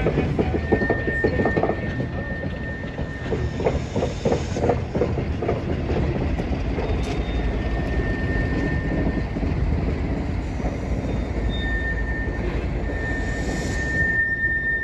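Slow-rolling railroad cars, a steam locomotive's tender and a wooden snow plow, rumbling along the track, with knocks and clanks in the first few seconds. A thin, high wheel squeal comes and goes several times.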